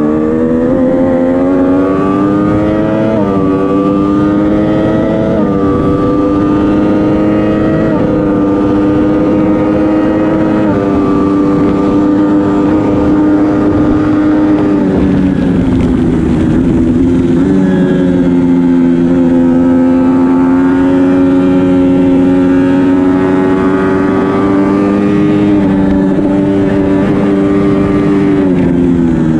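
2012 Triumph Daytona 675R's inline three-cylinder engine under hard acceleration on track. The pitch climbs with brief small drops about 3, 5 and 8 seconds in at each quickshifted upshift, falls from about eleven to seventeen seconds in as the bike slows for a corner, then climbs again and holds steady before dropping near the end.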